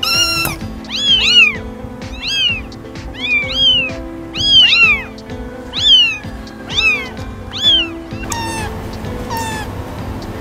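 Young kittens mewing in a rapid series of high calls, each rising and then falling, over background music; after about eight seconds the calls become fainter and lower.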